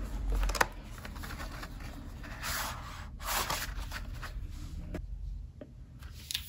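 Paper rustling and rubbing as the pages of an album photobook are handled and turned, in uneven bursts with a few light ticks.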